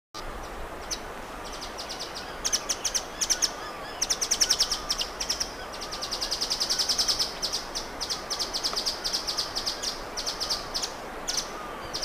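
Blue nuthatch calling: bursts of rapid, sharp, high-pitched notes at about ten a second, with a longer run of them in the middle. A steady hiss of forest ambience lies underneath.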